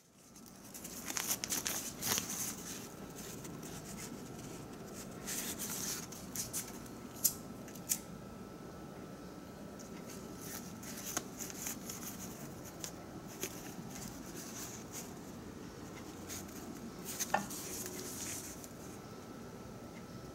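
Crumpled newspaper and twig kindling in a metal drum rustling and crackling as the paper is lit and handled, with a few sharp clicks and snaps.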